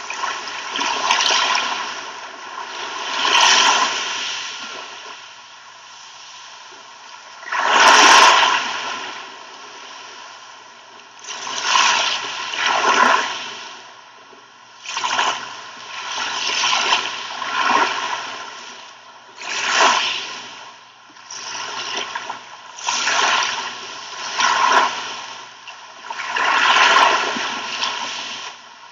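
Sea waves breaking and washing up the shore in repeated surges every one to three seconds, the loudest about eight seconds in.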